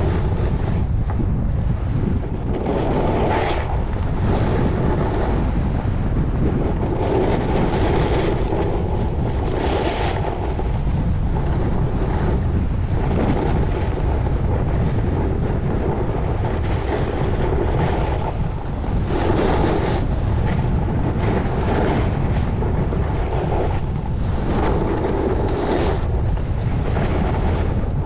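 Wind buffeting the microphone during a fast downhill slide on a groomed ski run. The scrape of edges carving the packed snow swells with each turn, every few seconds.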